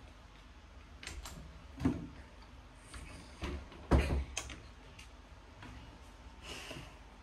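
A few scattered knocks and thumps, like objects being set down or moved, with the loudest about four seconds in.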